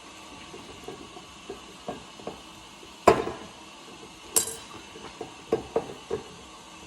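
Scattered knocks and clinks of a glass whiskey bottle being handled while its wax seal and cork are worked at, with one sharp knock about three seconds in and a short, high scratchy sound a second later.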